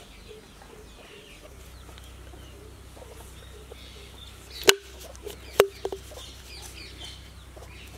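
Chickens clucking in the background. About halfway through come two sharp knocks with a short ring, and a few lighter clicks.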